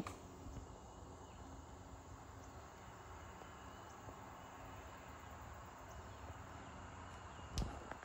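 A chainsaw cuts off right at the start, leaving quiet outdoor background with no clear source. A single sharp knock comes near the end.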